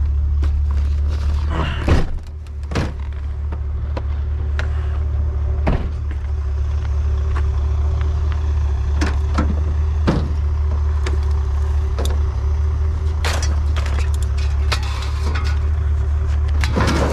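Truck's steady low engine and road drone, heard from inside the cab, with scattered clicks, rattles and a few knocks.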